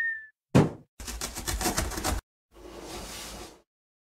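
Cartoon sound effects: a loud thud as the box lands, then a rapid rattle of knocks, about eight a second for just over a second, and a soft whoosh as the figure pops up out of the box.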